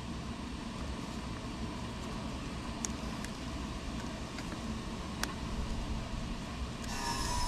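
A few light clicks from small plastic parts and zip ties being handled over a steady background hiss; near the end the hiss grows louder.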